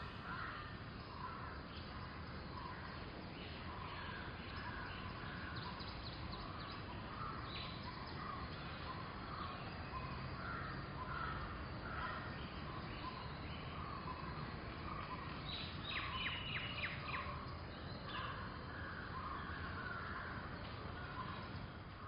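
Park ambience: many birds calling and chirping in short scattered calls over a steady background noise, with a quick run of sharp calls about sixteen seconds in.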